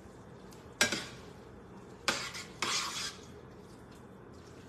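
A cooking utensil stirring food in a pot: one sharp clank against the pot about a second in, then two short scrapes a couple of seconds later.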